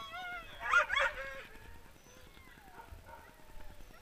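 Sled dogs barking and whining: whines at the start, two sharp barks about a second in, then a long falling whine.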